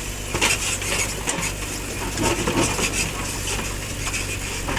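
Murum (gravel and stones) clattering and rattling as it is tipped from a JCB 3DX backhoe loader's bucket into a steel tractor trolley. The clatter is heaviest in the first three seconds, over the steady hum of the diesel engine.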